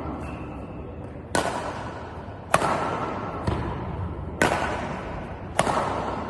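Badminton shuttlecock being struck by a Yonex Astrox 99 Pro racket strung with BG65 Titanium at 34 lbs: four sharp, loud hits a second or two apart, with a fainter one in between. Each hit echoes briefly.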